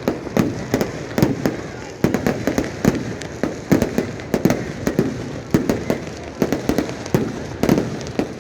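Fireworks going off in a rapid, irregular string of sharp bangs and pops, several a second.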